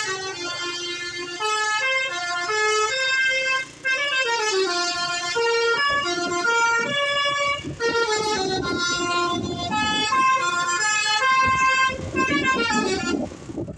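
Bus 'telolet' horn, a Basuri V3 multi-tone horn set, playing a melody: a quick run of stepped notes changing several times a second, with one brief break about four seconds in.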